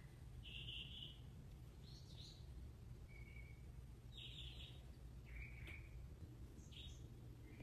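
A songbird singing: short, high chirpy phrases repeating about every second, faint over a low steady hum.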